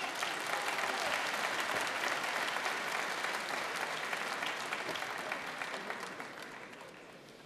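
A large arena crowd applauding between boxing rounds, a dense patter of clapping that dies away over the last couple of seconds.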